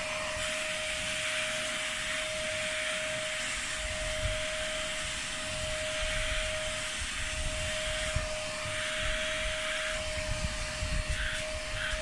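Bossman Kaden Pro K2 cordless stick vacuum running in turbo mode: a steady whine over the hiss of rushing air, with a few faint ticks near the end.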